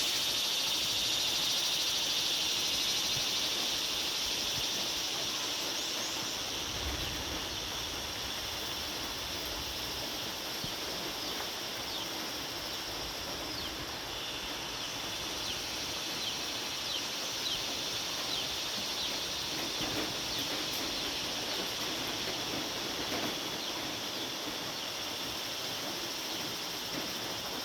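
Evening chorus of crickets and other insects: a steady, dense high trill, with short chirps of other calling animals scattered over it.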